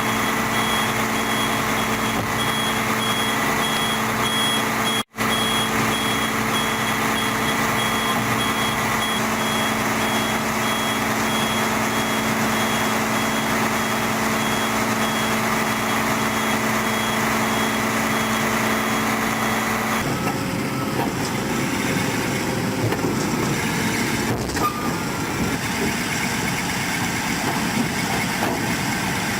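Heavy machine's diesel engine running steadily, with a reversing alarm beeping. The sound drops out for an instant about five seconds in, and about twenty seconds in it turns into a rougher machine noise.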